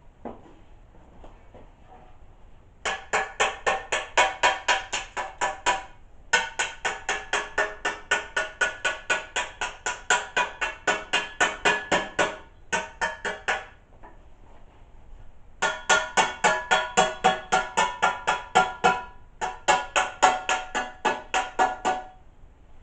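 Rapid hammer blows on sheet steel, about four a second, in several runs with short pauses between them; each blow rings with a metallic tone.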